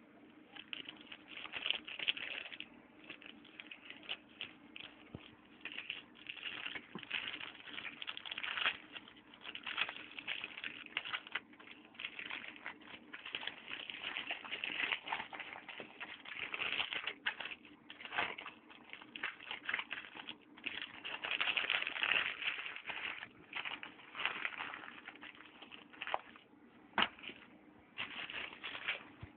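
Foil trading-card booster-pack wrapper crinkling and rustling as it is handled and torn open, in irregular crackly bursts with short pauses.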